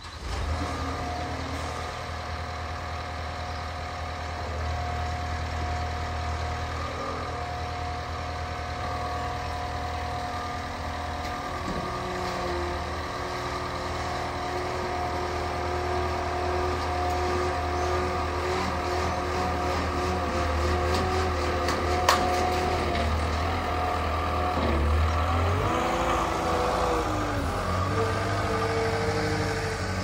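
Skid steer loader's engine starting up and running steadily as the machine is driven; in the last few seconds its pitch rises and falls as it is throttled and worked. One sharp click a little past the middle.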